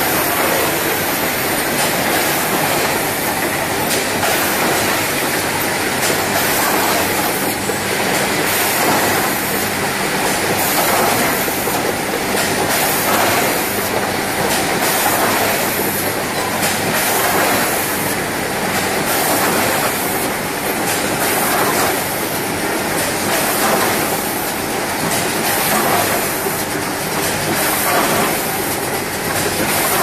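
Automatic cartoning machine running while it packs dishwasher tablets into cartons: a loud, steady mechanical clatter of conveyors and carton-handling arms under a constant hum, with the clatter swelling in a regular cycle roughly every second.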